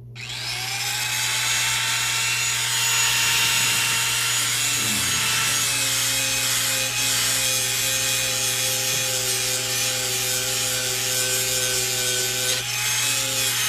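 An electric grinder motor switches on, spins up over the first second and then runs steadily with a harsh grinding hiss as a knife blade is ground against it.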